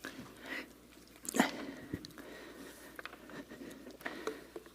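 Quiet room with scattered small clicks and knocks, and one louder knock about a second and a half in.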